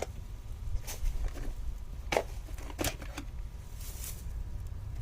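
Footsteps, a handful of irregular steps, over a steady low rumble.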